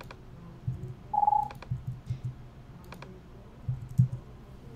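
Computer keyboard keys tapped and clicked at an irregular pace as numbers are typed into a software settings field.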